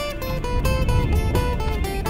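Background music: a guitar melody stepping quickly from note to note over strummed acoustic guitar.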